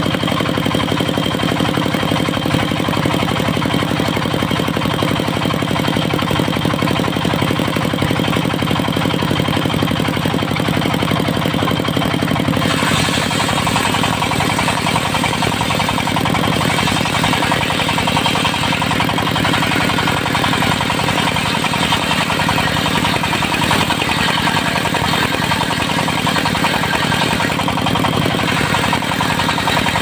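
Diesel engine driving a large circular sawmill blade, running steadily as the blade rips teak timber. About a third of the way in the sound turns brighter and hissier.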